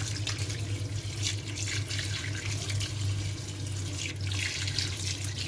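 Tap water running and splashing over hands and pieces of boiled kidney in a wire-mesh strainer in a sink, as the pieces are rinsed and rubbed clean. A steady low hum runs underneath.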